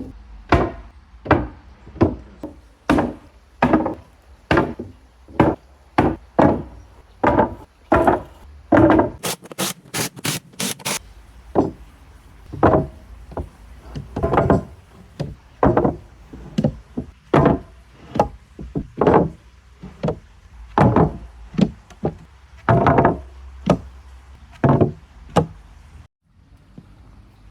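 Repeated knocks on wood, about one to two a second, typical of hammering boards while building a wooden boardwalk. About nine seconds in comes a quick run of six sharp clicks.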